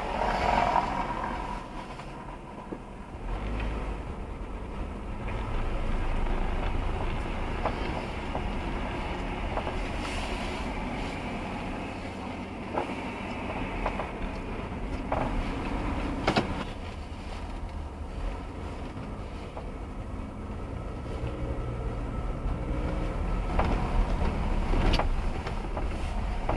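Car driving through city streets, with steady engine and tyre noise heard from inside the cabin and a few scattered sharp knocks and clicks.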